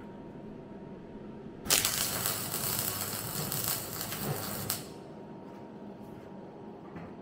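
MIG welder running a single weld of about three seconds on a car's steel body panel, a steady crackling hiss that starts about a second and a half in and cuts off abruptly.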